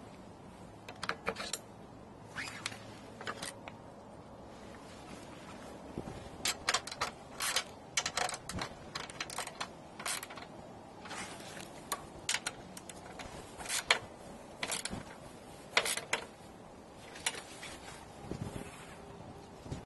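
Irregular metallic clicks and clinks of hand tools and metal parts being handled on a mower deck's pulleys and belts, in scattered single and clustered knocks.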